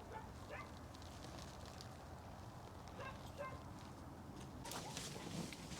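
Faint outdoor ambience: a low steady rumble with a few short, faint animal calls about three seconds in, and rustling near the end.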